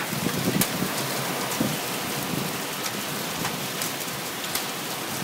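Heavy rain pouring down, a steady hiss with scattered sharp ticks.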